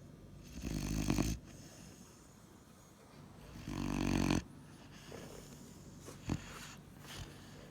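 Weimaraner puppy snoring in its sleep: two loud snores about three seconds apart, the second swelling before it cuts off suddenly. A single short click follows later.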